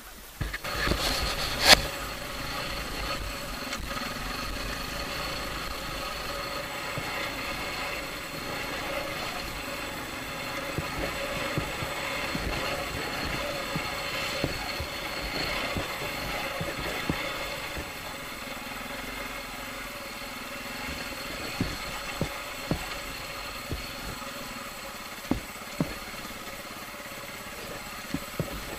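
Dirt bike engine running steadily, heard up close from on the bike while it is ridden. A single sharp knock about two seconds in, and a few lighter knocks later.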